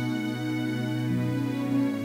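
Slow instrumental background music with long held notes, the chord changing about a second in.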